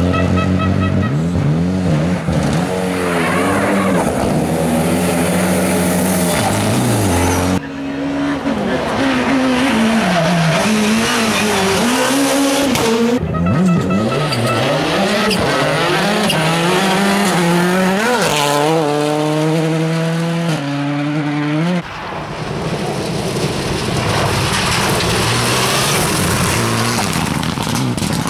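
Rally car engines revving hard through a corner, one car after another, the sound changing abruptly from car to car three times. Revs rise and fall with lifts and throttle bursts, and a run of quick upshifts comes about two-thirds of the way through.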